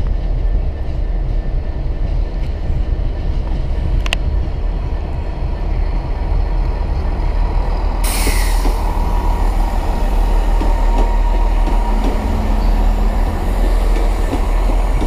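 Great Western Railway diesel multiple-unit train passing close at low speed, its engine and wheels giving a steady heavy rumble. About eight seconds in there is a short burst of air hiss falling in pitch, followed by a thin high whine for a few seconds.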